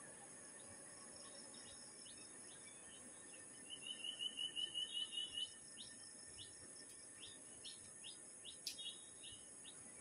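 Insects keep up a steady high drone while birds chirp now and then; a bird gives a quick run of about ten notes about four seconds in, the loudest sound, and a single sharp tick comes near the end.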